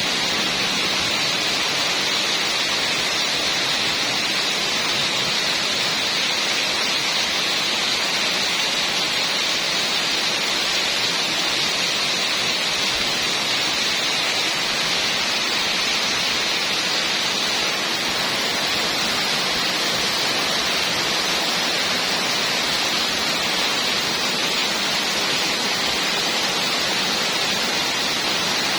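Heavy rain falling steadily: a constant, even hiss with no distinct drops or thunderclaps.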